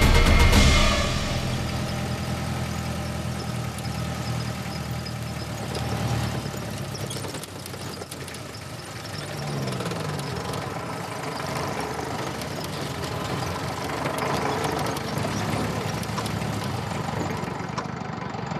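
Car engine running steadily, with a brief shift in engine pitch about halfway through.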